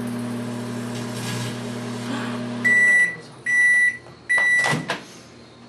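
Microwave oven running with a steady hum that stops about two and a half seconds in, followed by three loud high beeps signalling the end of the heating cycle, then a sharp click.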